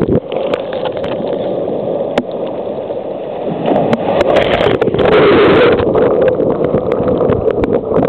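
Shallow sea surf washing and fizzing over sand, a steady rush of water that swells loudest about four to six seconds in, with scattered sharp clicks.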